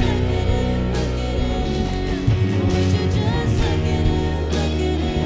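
Live worship band music: a sung melody over guitar and bass, playing steadily.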